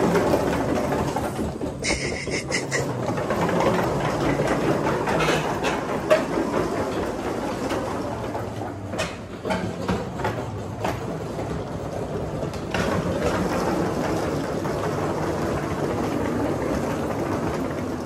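Steady rumble of a moving vehicle heard from inside, with a few short knocks and rattles partway through.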